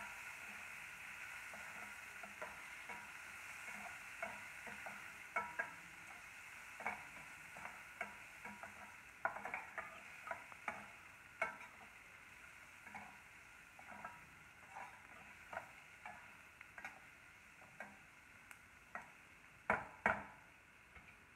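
Chopped onions sizzling in hot oil in a stainless steel kadai while a perforated metal spatula stirs them, scraping and clicking against the pan, with two sharper knocks near the end.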